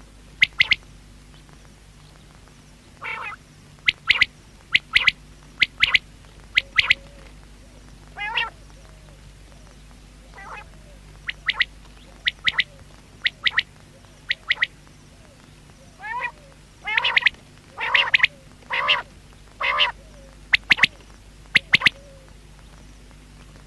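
Common quail calling: short sharp notes in quick groups of two or three, repeating about once a second, mixed with lower, longer wavering notes, which come thickest between about 16 and 20 seconds in.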